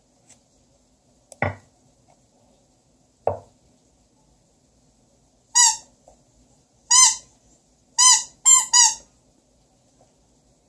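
A squeaky toy squeezed five times, giving short, high squeaks, the last three in quick succession. Two knocks come before them.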